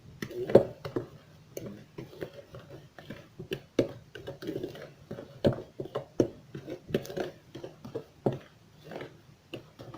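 Irregular clicks, taps and rustling of basbousa semolina being mixed with ghee in a bowl. A faint steady hum lies underneath.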